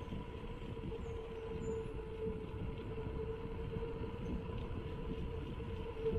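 Riding noise from a mountain bike rolling along a concrete road: wind buffeting the handlebar-mounted camera's microphone and tyre rumble, with a steady hum throughout.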